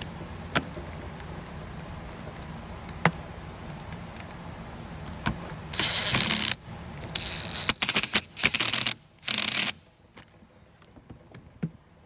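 Cordless drill with a T30 Torx bit backing out the screws of a refrigerator door's top hinge, running in four or five short bursts from about six to ten seconds in. A few light clicks of metal handling come before and after.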